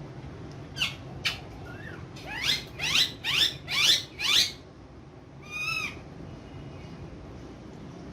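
Ringneck parrot squawking: two short sharp calls, then a rapid run of five loud screeching calls, then one more shorter call.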